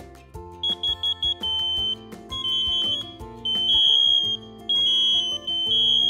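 Several interlinked CPVAN smoke and carbon monoxide alarms sounding together: a piercing high-pitched beeping that starts about half a second in with a few quick beeps, then runs into longer overlapping tones as more units join in through the interlink.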